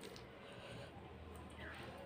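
Faint mouth sounds of a handful of rice and dal, eaten by hand, going into the mouth and being chewed.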